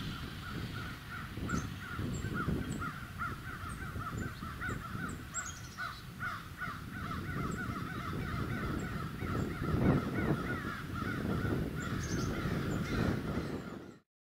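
Birds calling over and over in a rapid chorus of short, harsh notes, several a second, with a low rumble underneath that swells about ten seconds in. The sound cuts off suddenly near the end.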